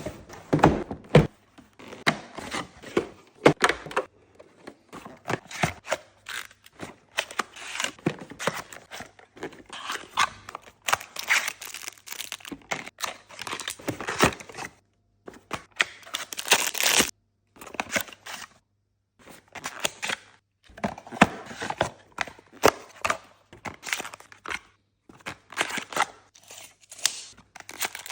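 Cardboard advent-calendar packaging being handled and opened: irregular tearing, crinkling and knocks, with a few short pauses.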